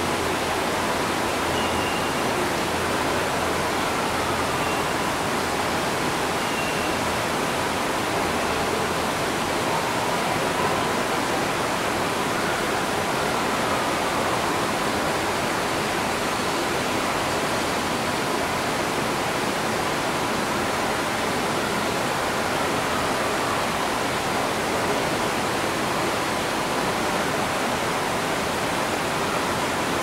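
Waterfall running, a steady, even rush of falling water, with a few faint bird whistles now and then.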